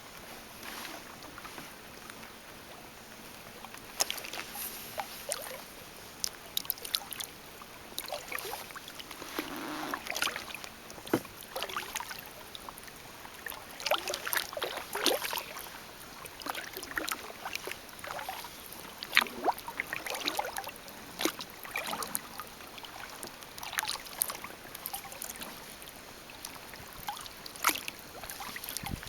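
Kayak paddle strokes in the water: a run of short splashes and drips off the paddle blades.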